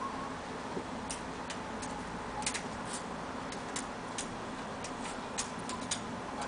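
Irregular light clicking of a Yorkshire terrier's claws tapping on a glass TV stand top as it paws and shifts its front feet, about fifteen sharp clicks unevenly spaced.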